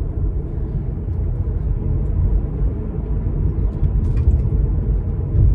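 Road noise inside the cabin of a moving Kia e-Niro electric car: a steady low rumble from the tyres on the road.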